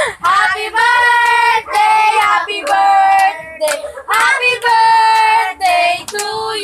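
A group of women and children singing a birthday song together in long held notes, phrase after phrase with short breaths between.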